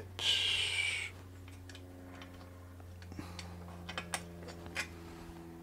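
Small steel linkage parts of a toy sewing machine clicking against each other and the metal casting as a crank link is hooked on by hand. A brief scrape near the start, then scattered light clicks.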